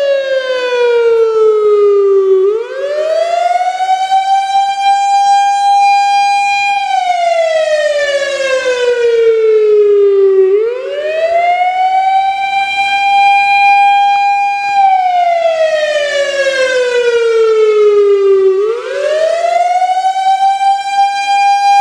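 WS 3000 outdoor warning siren sounding a wail. Its pitch climbs quickly, holds high for a few seconds, then slowly falls, repeating about every eight seconds, three times in all.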